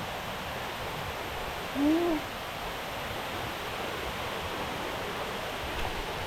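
Waterfall in heavy flow, a steady rushing roar of falling water. About two seconds in, a short hoot-like call rises and falls above it.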